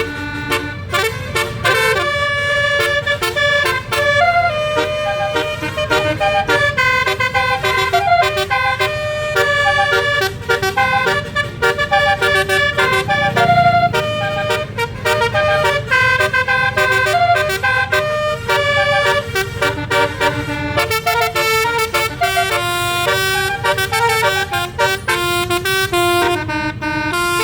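Bus telolet basuri horn, a 12-note set of air-horn trumpets, playing a long melody of quick, stepped notes over a steady low rumble.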